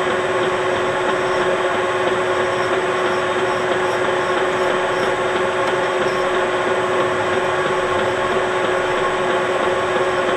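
Metal lathe running steadily with a steady hum, while a flat file is held against the spinning shaft to chamfer and clean up a freshly cut 1/4-20 thread.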